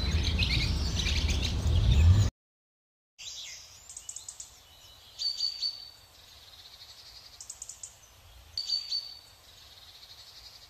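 Small birds chirping over steady outdoor background noise. About two seconds in the sound cuts out for a moment, then only a few short, faint chirps come at intervals.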